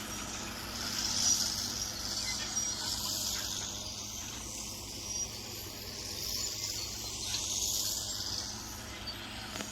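Bulldozer engine running at a distance, under a high hiss that swells and fades twice.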